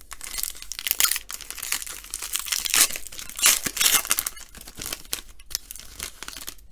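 A trading card pack's wrapper being torn open and crinkled by hand: dense crackling and rustling, with a few sharper, louder rips, the loudest about a second in and around three and three and a half seconds in.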